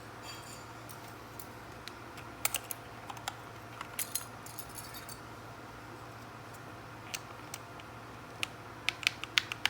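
Plastic keycaps being pulled off and pressed onto a mechanical keyboard's switches: scattered sharp clicks and small clusters of clicks.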